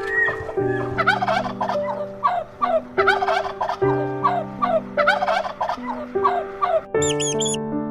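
Animal calls in rapid warbling bursts, repeated over and over, against steady background music; high, quick squeaks begin near the end.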